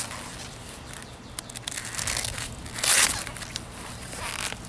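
Crinkling and rustling of a Jeep soft-top upper door's fabric skin and clear vinyl window being rolled back and pulled off its metal frame, with a louder rustle about three seconds in.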